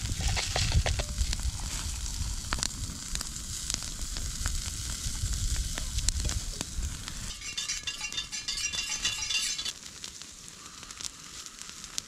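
Crackling and sizzling from a campfire cook-up, with sharp pops scattered throughout. Partway through, hot water is poured from a kettle into a steel mug.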